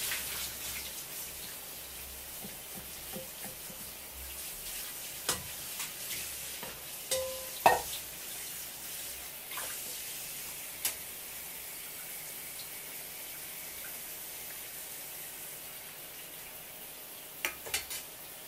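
Soy-and-sugar broth boiling in a pot of simmering tuna eyes: a steady bubbling hiss with a few sharp clicks and pops, the loudest a little before halfway and a quick pair near the end.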